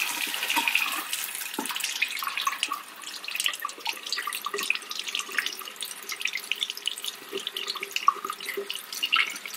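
Bathroom sink faucet running onto fingers held under the stream, water splashing and spattering unevenly as the hand moves.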